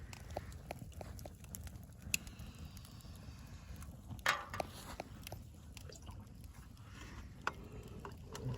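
Campfire crackling, with irregular sharp pops over a low, steady rumble.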